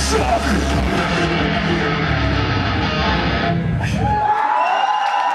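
Live rock band playing loud, with electric guitar, bass and drums. About four seconds in the drums and bass stop and only sustained ringing high tones carry on as the song ends.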